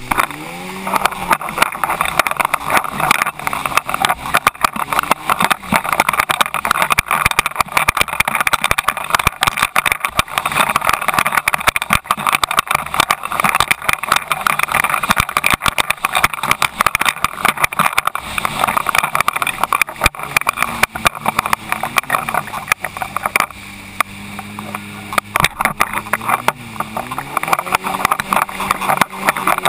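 Jet ski engine running under way, its pitch rising and falling with the throttle, under a dense rush of wind and water spray spattering against the craft-mounted camera. For a few seconds around two-thirds in the rush drops away and the engine settles to a steady tone, then it climbs in pitch again near the end.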